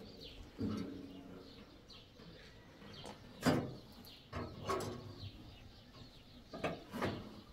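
Tie wire and steel pliers clicking and clinking against a metal window grille as the wire is twisted tight, a few separate sharp clicks, with a short low pitched tone about half a second in.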